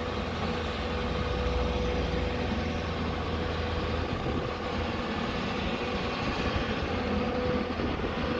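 Hyundai SMART 215L excavator's diesel engine running steadily, with a thin steady whine over it that fades out near the end.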